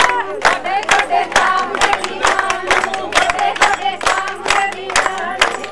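A group singing together over a crowd, with sharp claps or beats keeping a steady rhythm of about three a second.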